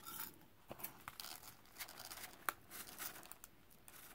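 Faint rustling and crinkling of a rolled paper funnel and cloth with scattered ticks of rice grains, as a fabric pincushion is being filled with rice; a sharper click about two and a half seconds in.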